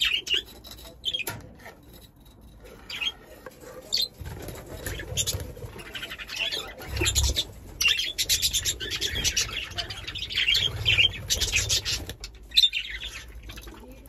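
A flock of budgerigars chirping and chattering, with fluttering wings as birds fly between perches; the calls are busiest through the middle.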